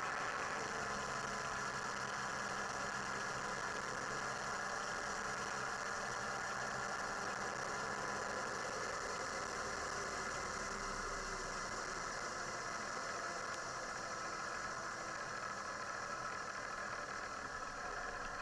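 Rotax 582 two-stroke engine and propeller of a Chinook Plus 2 ultralight, throttled back for landing and running with a steady drone, along with airflow noise. The drone eases slightly lower as the plane rolls out on the runway.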